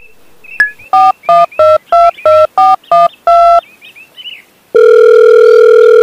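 Phone keypad dialing: about eight short two-tone beeps in quick succession, then a steady telephone tone, loud, starting near the end.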